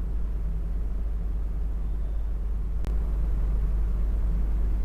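Steady low background hum, with a single sharp click about three seconds in.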